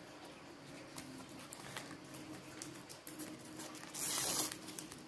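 Faint taps and rustles of sticker cards being handled, then, about four seconds in, a short tearing rustle as a Topps sticker packet is ripped open.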